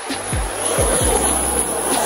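Music with a deep, pulsing beat, mixed with the rising rushing noise of an aircraft making a low pass overhead. A high whine starts to drop in pitch near the end as the aircraft goes by.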